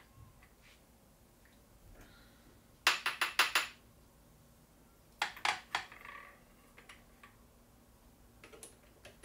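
Light metallic clinks of brass 338 Lapua cartridge cases being handled at a reloading press: a quick run of about five near three seconds in, then three or four more a couple of seconds later and a few faint ones near the end.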